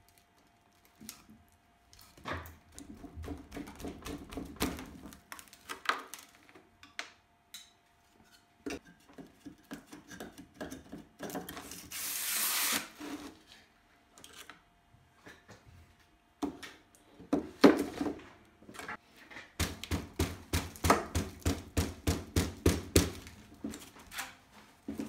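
Wooden form board and paper-wrapped tube being worked loose from hardened homemade refractory cement: scattered wooden knocks and rubbing, a hissing scrape about halfway through, then a fast run of knocks near the end.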